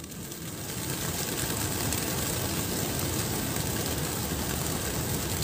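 A large flock of racing pigeons bursting out of transport crates at once: a dense, steady whir of hundreds of flapping wings, building up about half a second in.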